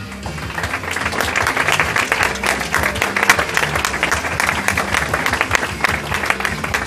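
Audience applauding, with a dense patter of many hands clapping that starts about half a second in, over background rock music with guitar.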